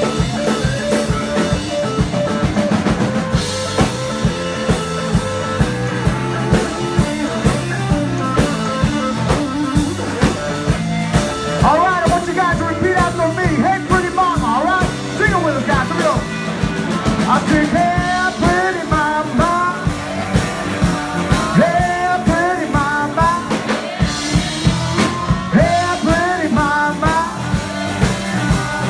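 A live blues band playing: electric guitar, bass guitar and drum kit over a steady beat. From about twelve seconds in, a lead line of bending, wavering notes rides on top.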